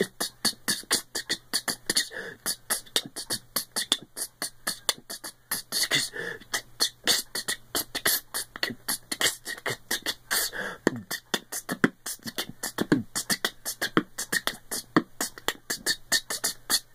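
Beatboxing: a steady run of fast, rhythmic percussive mouth sounds, several hits a second, making a basic beat.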